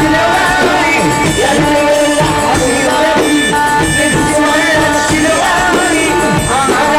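Arabic popular song music: an instrumental passage with a gliding, ornamented melodic lead over a steady percussion beat.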